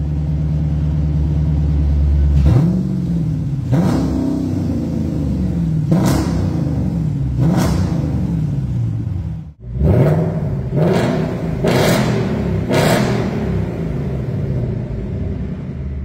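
Dodge Challenger's 5.7-litre HEMI V8 idling through its exhaust, then blipped four times, each rev rising and falling back to idle. After a sudden break, a Ford Mustang GT's V8 is blipped four quick times in a row and settles back to idle.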